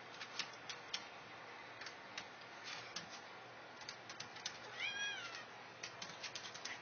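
A cat meows once about five seconds in, a short call that rises and then falls in pitch. Scattered light clicks and taps come and go around it.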